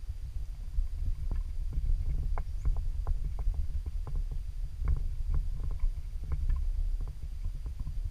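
Irregular crackling and rustling of dry cut grass and stalks, several small crackles a second, over a steady low rumble of wind or handling noise on the microphone.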